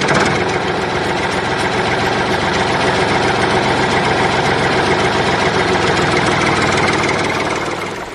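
Tractor engine running steadily at a constant speed, driving a water pump. The sound drops away near the end.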